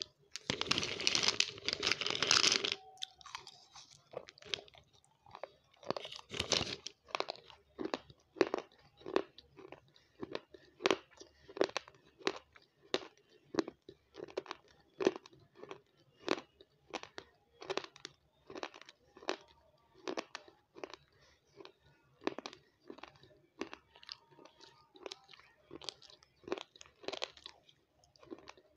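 Close-miked mouth crunching a spoonful of dry crumbles. A dense crunch for the first two to three seconds, then steady chewing at about two crunches a second.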